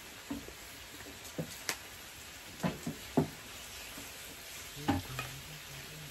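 Sliced pork belly sizzling steadily on an electric grill plate, with sharp clicks and clacks here and there from metal tongs and chopsticks against the grill and dishes.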